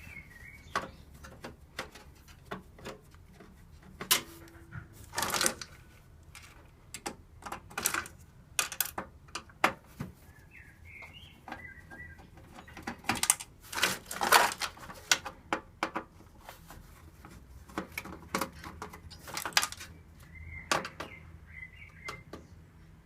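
Clicks, knocks and clatter of a screwdriver and metal computer parts while a motherboard is unscrewed from a steel computer case. A bird chirps briefly three times, at the start, midway and near the end.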